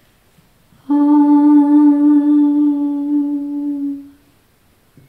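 A woman's voice chanting one long, steady "Om": a single held, hummed tone that starts about a second in and fades out about three seconds later.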